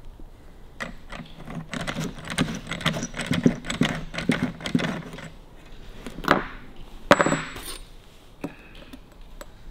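Harley-Davidson WLA seat-post coil spring clicking and rattling against long-nose pliers as it is wound along its rod to set the post's length, with two sharper metallic clinks a little past halfway, the second ringing briefly.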